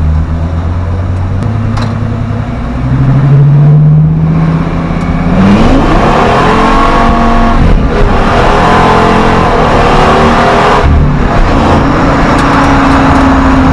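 Ford 6.8L Triton V10 accelerating hard under full throttle. Its revs climb steeply about five and a half seconds in, up to the rev limiter. It holds high revs with a brief break near eight seconds, then the pitch drops at a gear change about eleven seconds in.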